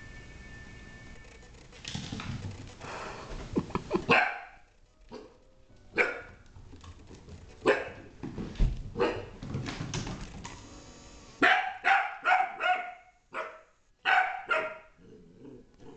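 Young beagle puppy barking repeatedly: separate short barks a second or two apart, then a quick run of about five barks past the middle, and a few more near the end.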